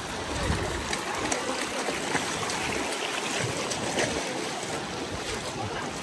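Shallow mountain creek rushing over rocks: a steady, even splashing hiss of running water.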